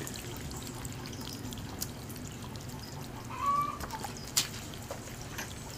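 Fish being scaled on a wooden board, heard as faint scrapes and a few light clicks, with a brief bird call about three and a half seconds in.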